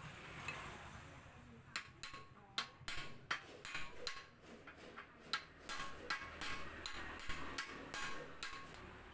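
A run of irregular sharp metallic clicks and taps, some with a short ring, like tools and small metal parts being handled and knocked against each other during motorcycle repair work.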